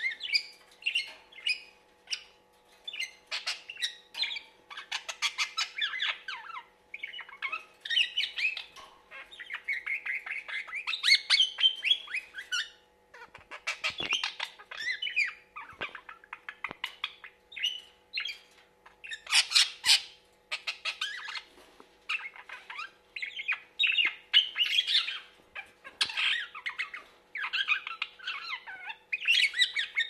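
Budgerigar chattering and warbling in quick, scratchy runs of chirps and squawks broken by short pauses, with a few sharp clicks in the middle stretch.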